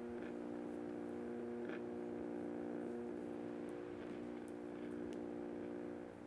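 Low steady drone of several held tones, a sustained ambient film-score pad, with a few faint soft ticks over it.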